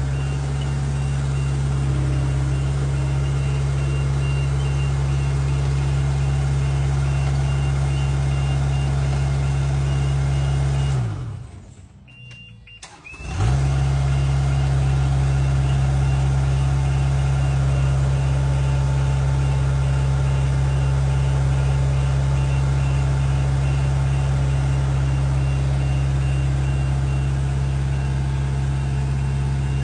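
Work machine's engine running steadily, with a faint repeating warning beep. Near the middle the engine winds down, stops for about two seconds, and starts back up.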